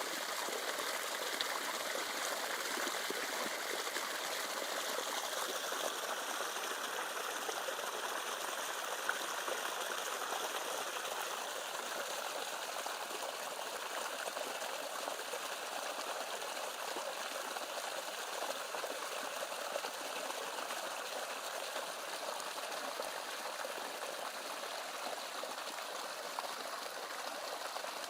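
Stream water running steadily, an even trickling with no breaks.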